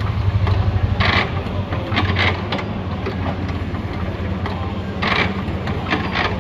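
An engine idling with a steady low, pulsing run, and a few short sharper sounds over it.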